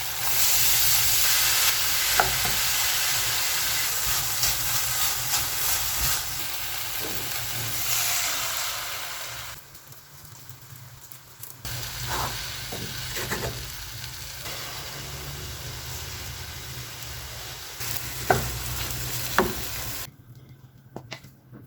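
Food sizzling in a hot frying pan as it is stirred, with a few sharp taps of a utensil against the pan. The sizzle is loudest at first, drops away for about two seconds near the middle, returns more softly, and stops shortly before the end.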